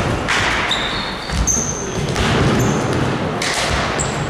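Basketball bouncing on a gym court, with a few thuds, short high squeaks and echoing hall noise.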